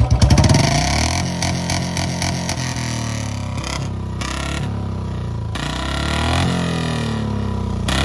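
Royal Enfield Bullet 350's single-cylinder engine running, its revs dropping about half a second in and then rising and falling unevenly while an ignition-cut 'patakha' switch wired into it is tried, in an attempt to make it backfire with pops. A few short clicks come through over the engine.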